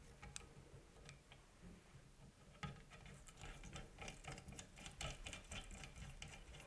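Faint, quick clicks and light rattles of an HHA Virtus fall-away arrow rest being handled and fitted onto a bow riser, becoming more frequent after about two and a half seconds.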